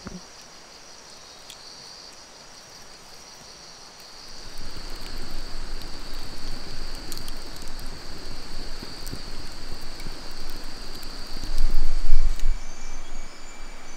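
Crickets chirping steadily at night; about four seconds in, the loud crackling and rushing of a campfire burning close by comes up, with a low rumble that is loudest near the end.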